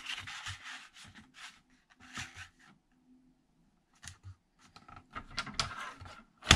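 Cardstock rustling and sliding on a Cricut paper trimmer as the sheet is lifted and lined up against the rail, with short scrapes and rubs, and a sharp click near the end.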